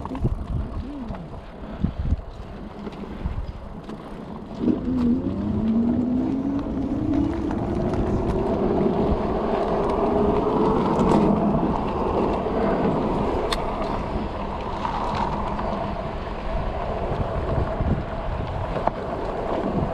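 Juiced City Scrambler e-bike's motor whining as the bike rides along, the whine climbing steadily in pitch for about six seconds from around five seconds in as it speeds up, over wind and road noise.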